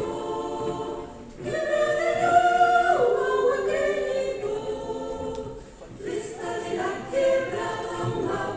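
Choir singing sustained chords in phrases, with brief pauses for breath about a second in and near six seconds in.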